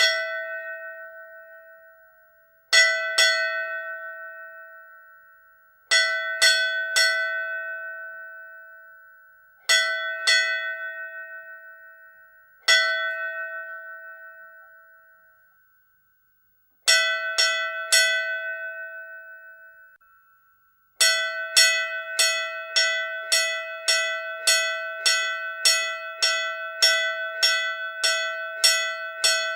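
Hindu temple bell struck in separate strokes and short groups of two or three, each ringing out and fading over a few seconds. About two-thirds of the way through it starts ringing steadily, about two strokes a second.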